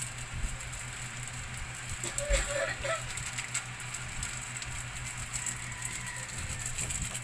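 Plastic pepper sachet crinkling with faint scattered clicks as ground black pepper is pinched out and sprinkled, over a steady low hum.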